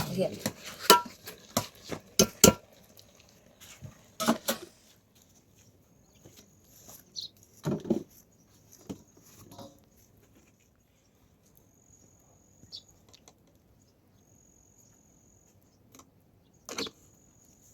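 Scattered clinks and knocks of metal pots and utensils being handled while cooking, several close together at first and then a few single ones. Faint high insect chirps come in the quieter middle stretch.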